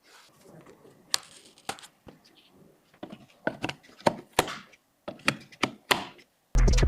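A string of sharp clicks and knocks, about a dozen spread irregularly across several seconds, from PC hardware being handled and fitted together. Loud music with a drum beat cuts in near the end.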